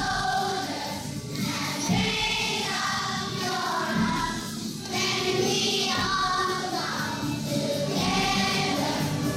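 A large crowd of children and adults singing together as a choir, phrase after phrase without a break.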